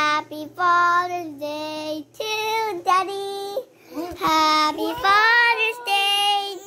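A young child singing a song: short phrases of held notes with brief pauses between them.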